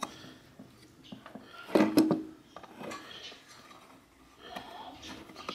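Clicks, knocks and rubbing as the metal housing of a gas conversion kit regulator and small tools are handled on a workbench, with a louder clatter about two seconds in.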